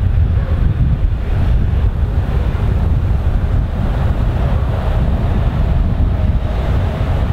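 Wind buffeting the camera microphone: a steady, loud low rumble that swells and dips.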